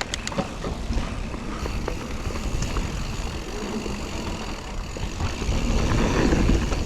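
Mountain bike tyres rolling over a dry, dusty dirt trail, with the bike rattling and knocking over bumps and wind rumbling on the camera microphone. It grows louder about five and a half seconds in.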